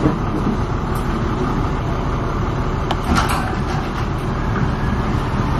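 A truck's engine idling: a steady low rumble, with a few light clicks about three seconds in.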